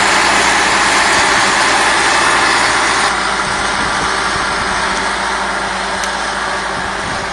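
Log skidder's engine running steadily, easing off slightly about three seconds in.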